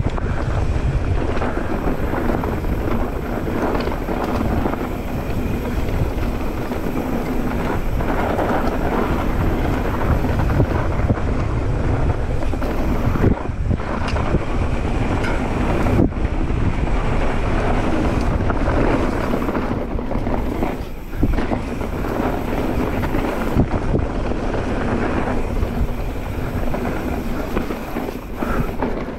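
Wind noise on the microphone over the tyre noise and rattle of a mountain bike descending fast on a dirt trail, with scattered short knocks from the rough ground.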